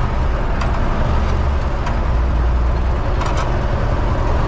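UTB Universal 650 tractor's diesel engine running steadily, heard from inside the cab, with a few short clicks or rattles on top.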